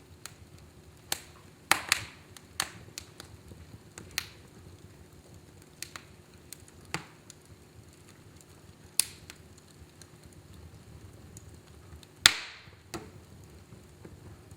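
Fireplace fire crackling, with irregular sharp pops of varying strength, the loudest about twelve seconds in, over a low steady hum.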